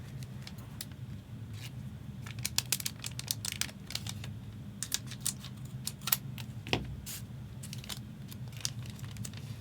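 Trading cards and foil pack wrappers being handled, heard as a run of sharp clicks and crinkles that bunch together in the middle. A steady low hum runs underneath.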